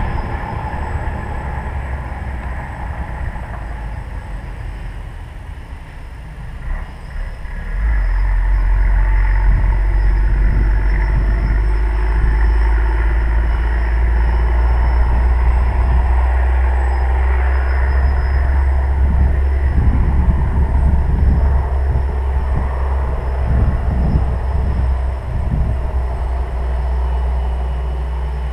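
Wind buffeting the microphone, a low rumble that grows much louder about eight seconds in, over the faint, wavering whine of a tricopter's electric motors and propellers in flight.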